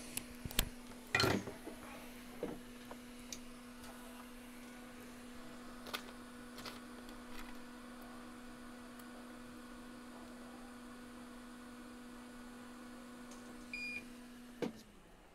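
Steady electric motor hum from microsoldering bench equipment, with a few sharp clicks of small tools in the first seconds. Near the end a short high beep sounds, then the hum cuts off and its pitch falls away as the motor winds down.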